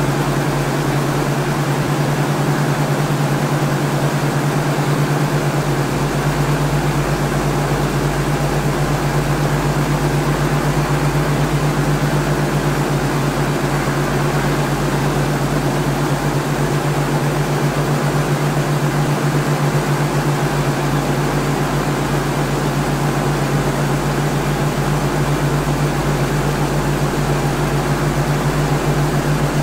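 Steady, unchanging mechanical hum with a strong low tone and fainter overtones above it.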